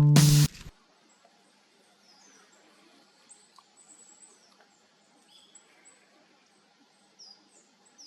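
Plucked guitar and bass music cuts off suddenly about half a second in. Then faint small birds chirp, short high calls scattered over a quiet background.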